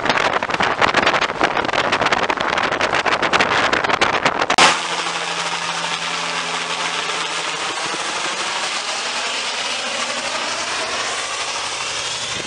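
A light two-bladed helicopter flying low overhead, with fast rotor chop. About four and a half seconds in there is a click and a cut, after which it becomes a steadier drone with a low hum and a slowly shifting whoosh as it passes.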